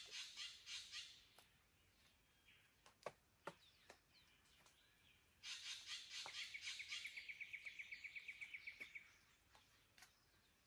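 Wild birds of an Australian forest calling: buzzy, pulsing chatter near the start and again about five seconds in, then a fast, even run of notes, about eight a second, lasting nearly three seconds.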